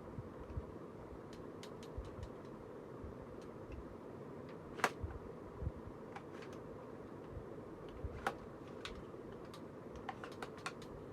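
Scattered light clicks and taps, as from handling a CO2 airgun, over a steady low background hum; the sharpest click comes about five seconds in, with a run of quick clicks near the end.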